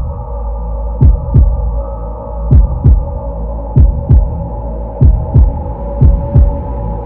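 Heartbeat-style soundtrack effect: a double thump about every 1.3 seconds over a steady droning hum.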